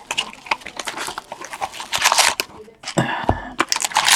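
Foil hockey card packs being torn open and crinkled, with cards being handled, in a run of short rustles and clicks. There is a dull thump about three seconds in.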